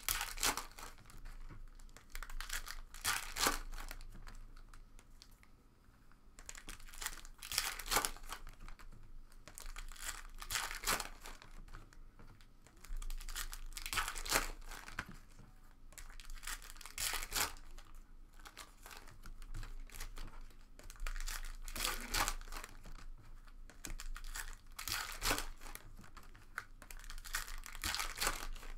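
Trading card pack wrappers crinkling and tearing as packs are opened and handled, in irregular rustling bursts every second or two.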